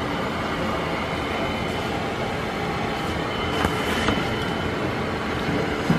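NuTone Verandah II Deluxe 52-inch ceiling fan running, a steady rush of air with a faint high motor whine. There are a couple of light clicks a little past the middle.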